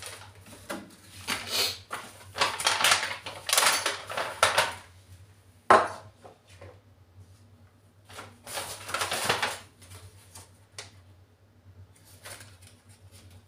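Small shopping items and a paper carrier bag handled on a tabletop: bursts of paper rustling and objects clattering, with a sharp knock about six seconds in and a lighter click near the end.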